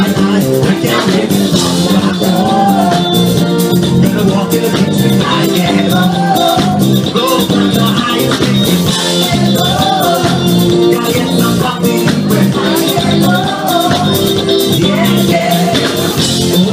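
Live band music through a PA: drum kit, electric bass and keyboard keeping a steady beat, with a male lead singer on microphone.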